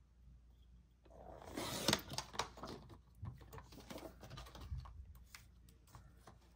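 Rustling and light clicking of laminated plastic cards being handled and set down on a paper trimmer, heaviest about a second and a half in, then scattered clicks.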